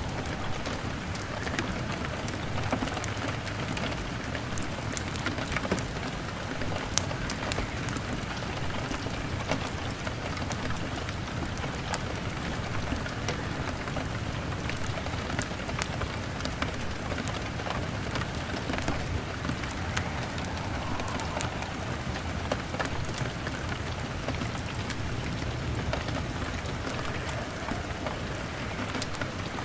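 Rain on a window mixed with a crackling log fire: a steady hiss of rain with many scattered sharp clicks and crackles.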